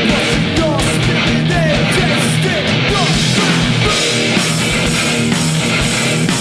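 A rock band playing live: electric guitars, bass and drums, with regular drum hits throughout and the cymbals filling in more fully about four seconds in.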